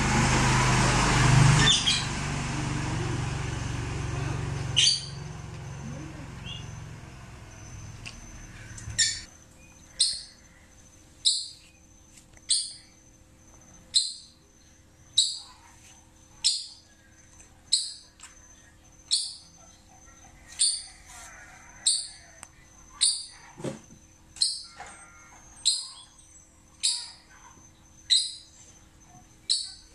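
A loud rushing noise with a low hum for the first several seconds, then a bird calling a short, sharp chirp over and over, about one every second and a quarter.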